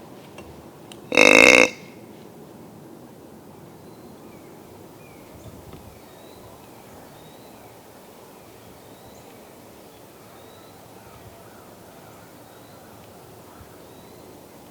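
A hunter's deer grunt call blown once, a short burp-like grunt about a second in, used for blind calling to draw in a buck.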